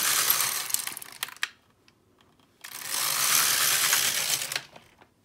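Silver Reed LK150 mid-gauge knitting machine carriage pushed across the needle bed, rattling and clicking as it knits two rows of tuck stitch: one pass ends about a second and a half in, and a second pass of about two seconds follows after a short pause.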